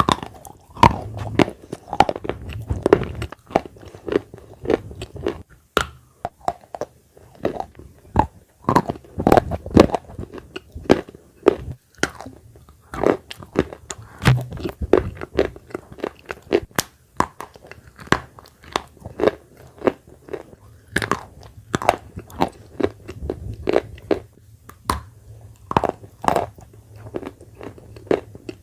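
Close-miked biting and chewing of dry edible clay (khawa, red earth): sharp, irregular crunches about once or twice a second as pieces are bitten and broken between the teeth.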